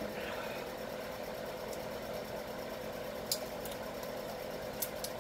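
A steady background hum with fixed tones, with a few short sharp crackles as a bouillon cube's wrapper is picked open; the loudest crackle comes a little past halfway, and two more come near the end.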